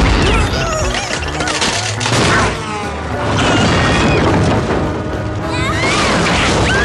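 Cartoon mayhem: a deep boom right at the start, then a dense din of crashes and sliding, wailing sound effects over music.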